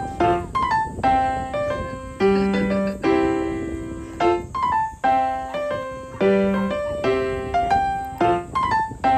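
Background music: a light piano tune of struck chords that start together and fade, in an even rhythm.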